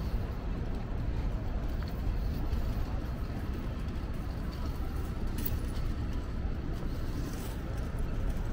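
Street ambience: a steady low rumble of road traffic, with a couple of faint clicks in the second half.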